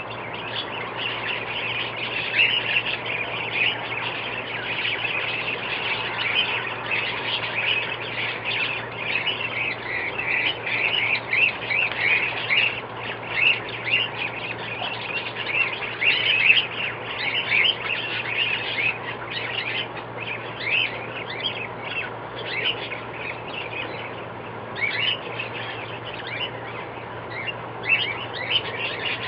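Many birds calling at once: a dense, continuous chatter of short chirps and squawks, with a faint steady low hum underneath.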